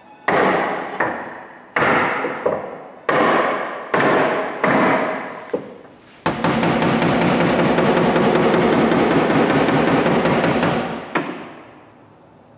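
Body hammer striking the steel rear quarter panel of a car, each blow ringing briefly, as a pushed-in body line is worked back out. About nine separate blows come in the first six seconds, then a rapid run of tapping lasting about five seconds, and one last blow near the end.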